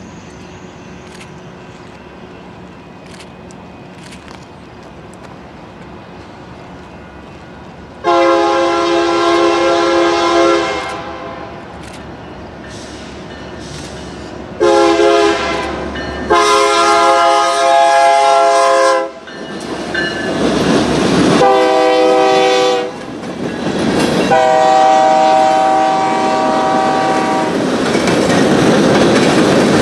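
Air horn of a GE AC4400CW diesel locomotive sounding a series of long and short blasts as it approaches and passes, starting about eight seconds in. Between and after the blasts comes the rumble of the passing locomotive and the clickety-clack of freight car wheels on the rails.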